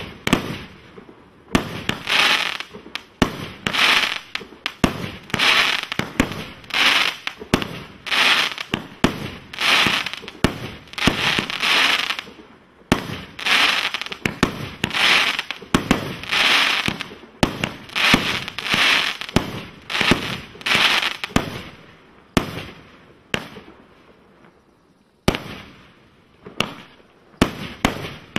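A 64-shot consumer firework cake (Crystal Spiders) firing shot after shot, about one a second: each a sharp bang followed by a short hissing crackle as the stars burst. The shots space out near the end.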